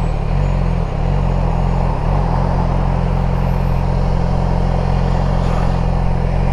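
Yamaha R6 sport bike's inline-four engine running steadily while being ridden, under a constant rumble and hiss of wind and road noise.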